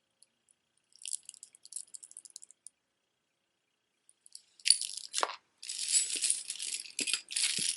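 Beads of a strung necklace clicking and rattling against each other as it is handled. A light patter of clicks comes about a second in, then a longer, louder run of rattling from just past halfway.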